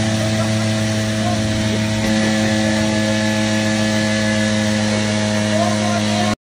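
Scooter engine held at steady high revs, a constant buzzing pitch, while the scooter is held in place and its rear wheel spins in the dirt. The sound cuts off suddenly near the end.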